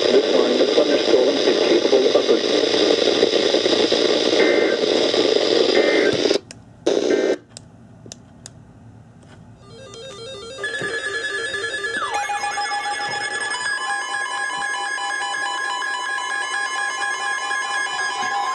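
Hissing radio static that cuts out sharply about six seconds in, with one short burst after it. A few seconds later a set of steady electronic tones comes in, layered and repeating in a pattern, and holds to the end.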